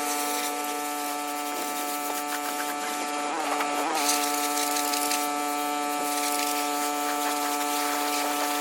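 A motor running at steady speed, a constant pitched hum with a brief dip in pitch about three and a half seconds in, as if briefly loaded.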